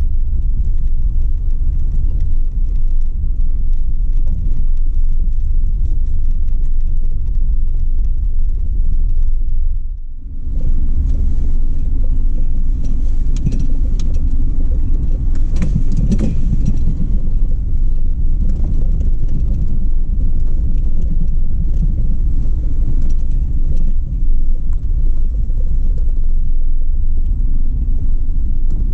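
Jeep Wrangler driving slowly over snow: a steady low rumble of engine and tyres. The rumble briefly drops away about ten seconds in, and a few knocks and rattles follow over the next several seconds.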